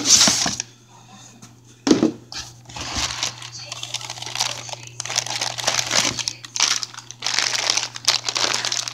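Packaging being handled and crinkling while coilovers are unwrapped: a sharp, loud rustle at the start and another about two seconds in, then near-continuous crinkling from about five seconds.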